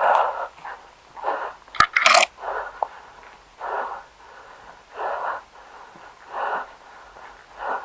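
Heavy breathing close to the microphone, one noisy breath about every 1.3 seconds. A sharp click and a short, harsh burst come about two seconds in.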